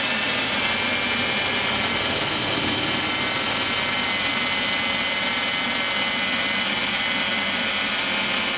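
2001 Ford Taurus 3.0 L OHV V6 idling steadily, with a thin steady high whine over the running. The engine runs fine after a new fuel injector was fitted for a cylinder 3 misfire (code P0303).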